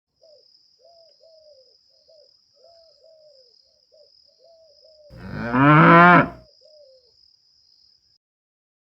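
A cow mooing once, a single loud call about a second and a half long that rises and falls in pitch, midway through. Faint short chirping calls, about two a second, and a faint steady high tone run beneath it.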